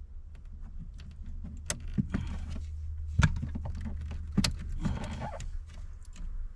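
Plastic pry tools working at a car's plastic dash trim: scattered sharp clicks and knocks with light scraping as the panel's clips are worked loose, over a steady low hum.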